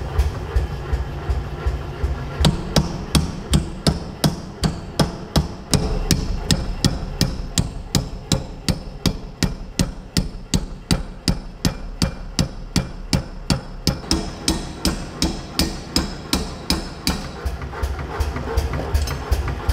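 Power hammer striking a punch held in a tool block, driving it into a red-hot steel hammer blank to punch the eye of a rounding hammer. The blows come in a steady run of about three a second, and grow harder about two and a half seconds in.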